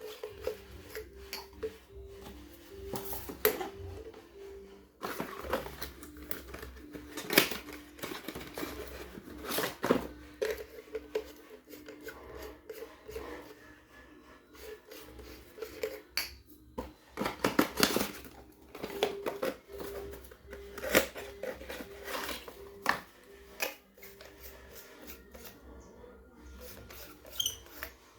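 Hands handling the packaging and parts of an LED lamp during unboxing: irregular clicks, knocks and rustles, some sharp and loud. Faint background music with a simple repeating melody runs underneath.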